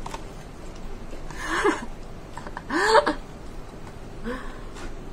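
A woman's short wordless vocal sounds made with her mouth full while eating: two breathy voiced sounds that slide briefly in pitch, and a fainter third near the end.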